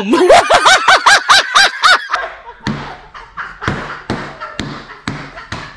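The 'meeka laugh' meme: a woman's high-pitched, honking laugh in rapid cackles, about six a second, for the first two seconds. After it come a few scattered knocks and thumps.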